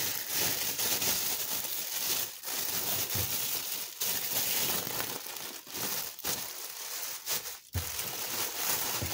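A clear plastic filter bag of mushroom substrate crinkling and rustling as it is folded over and pressed by hand. The crinkling is irregular, with short pauses.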